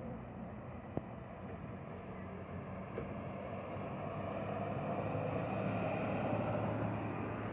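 Convoy of heavy goods trucks driving past: a steady engine drone with tyre and road noise that swells as a truck passes close, loudest about six seconds in. A brief sharp tap about a second in.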